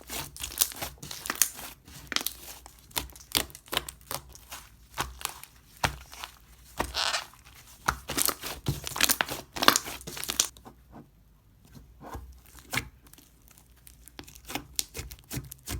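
Berry granola slime with crunchy mix-ins being squished and pulled by hand: dense sticky crackling and popping clicks. It goes briefly quieter about ten and a half seconds in, then comes back as scattered clicks.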